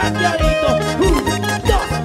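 Instrumental passage of a band's upbeat Latin dance tune: bass and drums keep a steady beat under sliding melodic lines.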